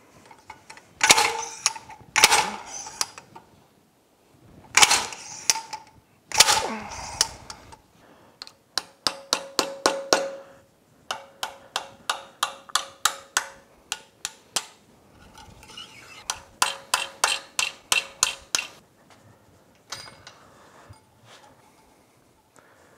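A slide hammer strikes four times against the input shaft seal housing of a Yamaha F225 outboard's lower unit. Each blow is a metal clang with a short ring, as it tries to pull out a housing corroded in place. Then comes a run of quick, light metal-on-metal taps, about three a second, as a pointed tool is worked against the housing to break it loose.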